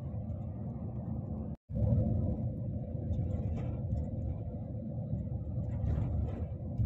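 Steady low rumble of a coach bus travelling at speed, heard from inside the cabin: engine and road noise. It cuts out for a moment about one and a half seconds in, then comes back slightly louder.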